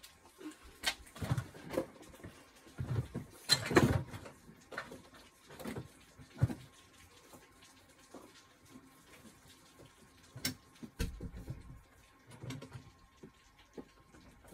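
Irregular drips and taps of rainwater dripping after a thunderstorm, mixed with a few louder knocks and bumps of a window being shut, the loudest about four seconds in.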